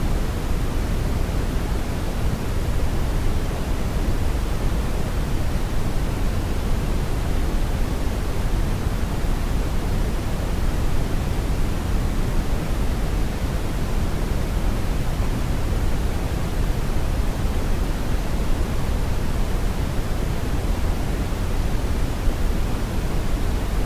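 Brown noise: a steady, deep rushing hiss, heaviest in the bass and dull in the treble, with no change.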